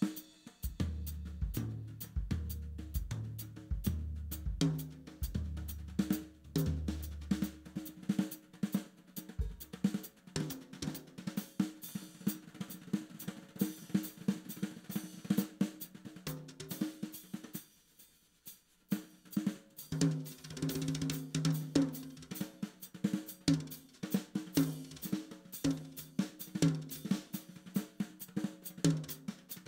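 Live instrumental band: a drum kit playing dense, busy drumming with snare, hi-hat and cymbals, under electric bass and keyboard notes. The band drops out for about a second a little past halfway, then comes back in.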